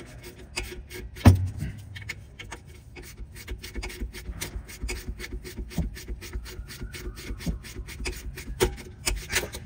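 Hand ratchet clicking in quick, even strokes, about four a second, as a long brake caliper bracket bolt is run down and tightened by hand. A single sharp knock comes about a second and a half in.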